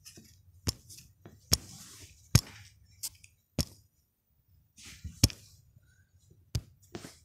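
A series of about eight sharp, irregularly spaced clicks and taps, with soft rustling between them.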